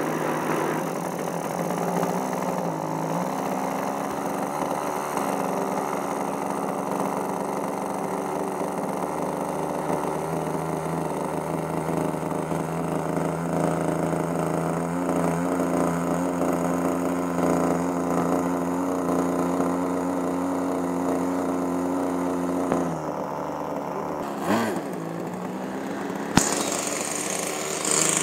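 ASP .52 two-stroke glow (nitro) model aircraft engine running steadily just after being spun up with an electric starter; its pitch steps up and down a few times and drops lower about three quarters of the way through.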